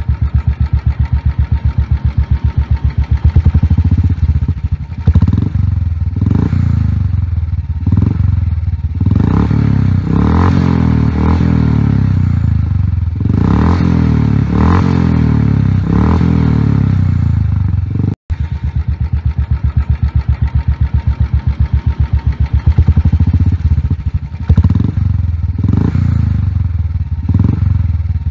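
Royal Enfield Himalayan single-cylinder engine breathing through a Globe Dolphin aftermarket performance silencer, idling with a steady pulsing beat and blipped on the throttle again and again. The sound drops out for an instant about 18 seconds in.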